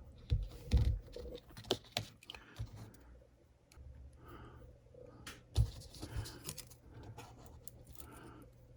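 Irregular light clicks, taps and scraping of small parts handled on a workbench, with a few sharper knocks near the start and again about five and a half seconds in.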